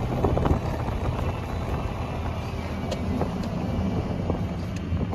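A car driving, with a steady low rumble of engine and road noise and a few faint clicks.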